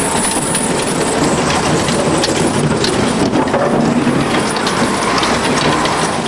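A snowplow truck passing: its engine running under a steady scraping clatter, typical of a plow blade dragging along the street.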